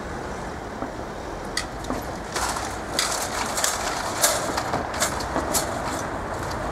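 Cars driving over a railway level crossing, with a run of sharp clacks and knocks from about two seconds in as their tyres cross the track, over a steady traffic hum.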